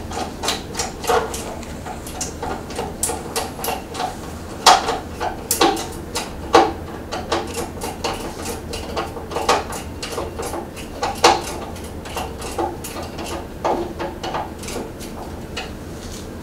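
Irregular small clicks and knocks of hands and a hand tool working on a benchtop band saw's metal frame and table while it is being adjusted; the saw's motor is not running.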